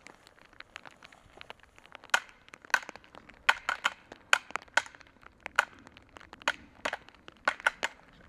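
A pair of deer antlers clashed and ground together, irregular clusters of sharp clacks starting about two seconds in. This is rattling, which imitates two whitetail bucks fighting in the rut to draw a buck in.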